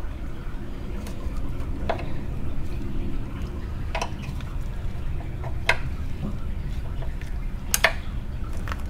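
Brake fluid and air sputtering out of a clutch slave cylinder's bleeder, through a clear hose into a catch bottle, as the slave's piston is pushed back in: air being purged from the clutch hydraulics. A handful of sharp clicks, about six, over a steady low hum.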